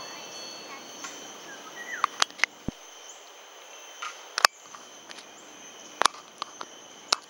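Steady high insect drone, with about half a dozen sharp clicks and knocks scattered through it, the loudest about four and a half seconds in.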